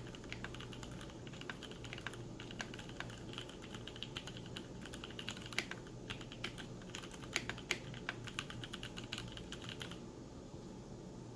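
Typing on a Duck Jetfire mechanical keyboard: a fast, irregular run of key clicks and bottoming-out strokes that stops about ten seconds in.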